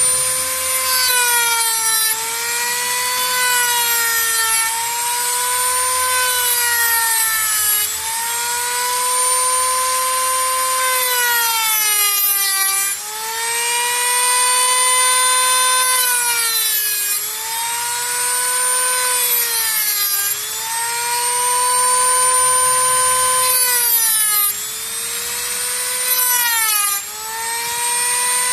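Small rotary tool with a cutoff disc cutting through a metal ring. The motor runs with a high whine that sags in pitch each time the disc bites into the ring, then climbs back as the load eases, over and over.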